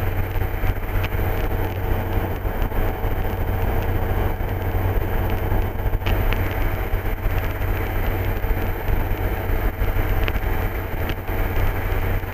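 Engine and propeller of an MD3 Rider ultralight aircraft running steadily in flight: an even, low drone.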